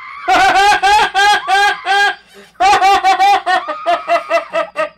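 A woman's high-pitched cackling laugh: rapid pulses about four a second in two long runs, with a short break about two seconds in, trailing off into weaker bursts.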